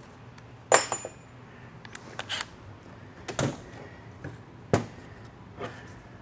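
Metal parts of an automatic transmission's front pump clinking and knocking as they are handled on a steel workbench. A sharp clink with a brief metallic ring about a second in, then several duller knocks about a second apart.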